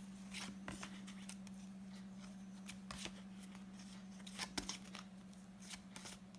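Paper flashcards being handled and flipped through quickly: about ten short, faint flicks and rustles at uneven spacing, over a steady low electrical hum.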